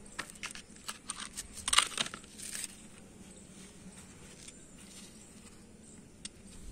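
Crinkly rustling with a run of short clicks in the first two or three seconds, loudest about two seconds in, from handling around the leafy plant; after that only a faint steady hum.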